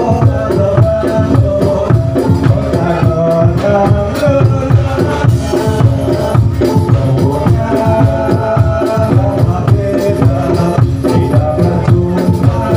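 Kubro Siswo dance music: steady, driving drumming under a held melody line, with rattling percussion.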